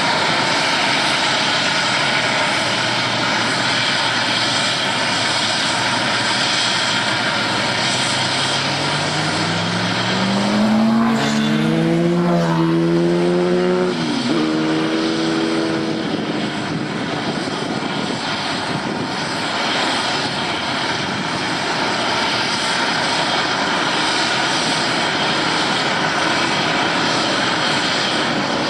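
Sand compaction pile vessel at work: a steady din of heavy machinery. A motor's whine rises from about eight seconds in, then drops away around fourteen seconds.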